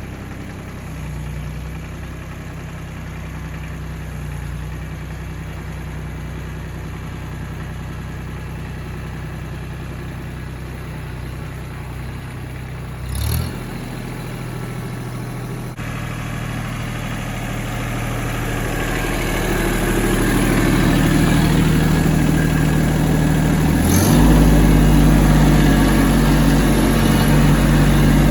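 Tractor engine running steadily, with one short knock about halfway through. It then grows louder and steps up sharply near the end.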